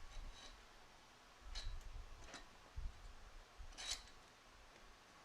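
Faint handling noise: a few short clicks, the loudest near the end, with soft low thuds between them.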